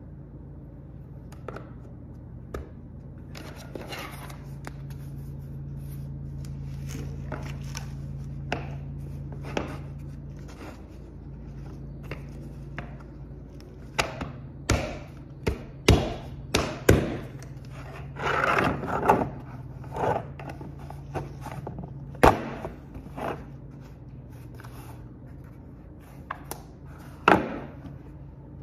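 Parts of a black dumbbell rack being handled and fitted together on a tiled floor: scattered clicks and knocks, several sharp ones in the second half, with some scraping and rubbing, over a steady low hum.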